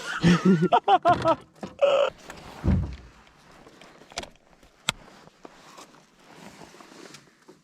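Wordless vocal cries that bend up and down in pitch during the first two seconds. Then a dull thump, two sharp clicks a little apart, and faint scattered handling knocks.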